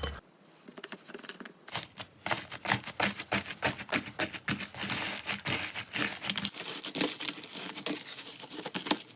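Slime being squeezed and pressed, crackling with many small irregular pops and clicks that start about a second and a half in.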